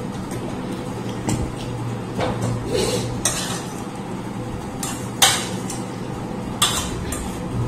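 A metal spoon clinking and scraping against a small brass bowl and plates, with about five sharp clinks spread out, the loudest a little past halfway.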